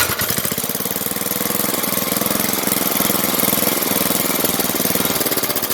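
Vintage 5 hp Briggs & Stratton flathead single-cylinder engine running fast and steady, with rapid, even firing.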